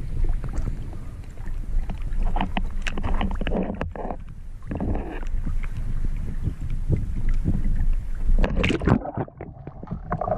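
Sea water sloshing and splashing around a wading spearfisher, with wind noise on the microphone. About nine seconds in, the sound turns muffled as the camera dips under the surface.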